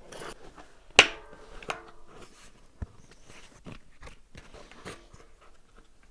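A tight bicycle tire being worked onto a rim by hand: rubber rubbing and scraping on the rim, with a sharp snap and a brief ring about a second in, then a few lighter clicks.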